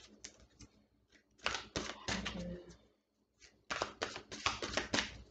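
A deck of tarot cards being shuffled by hand, a quick run of card clicks about a second and a half in and a longer, denser run from just past the middle almost to the end.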